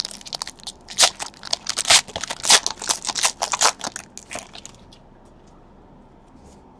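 Foil wrapper of a trading card pack being torn open and crinkled by hand: a dense run of sharp crackles and rustles that stops about five seconds in.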